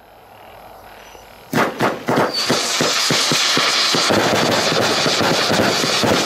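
A 100-shot, 21 mm firework cake ('Whistling Palms') firing. After a faint hiss, a few separate loud launches come about a second and a half in, followed by a rapid, continuous stream of shots and crackling bursts.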